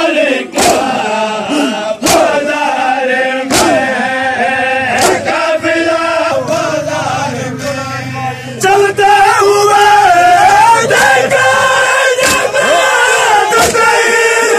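Large crowd of men chanting a noha in unison, punctuated by loud, sharp slaps of hands striking bare chests together (matam) about every second and a half. The chanting grows louder about nine seconds in.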